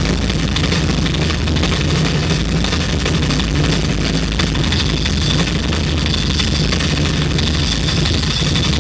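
Live rock drum solo on a full drum kit at concert volume, recorded so loud that it is overloaded into a dense, distorted wash of noise with fast, closely packed hits.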